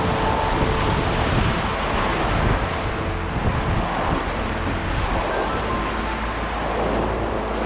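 Rushing river water, with wind buffeting the microphone.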